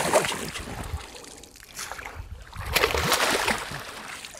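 A hooked tarpon thrashing and splashing at the surface beside the boat, still lively and fighting. There are two bouts of splashing, one at the start and another about three seconds in.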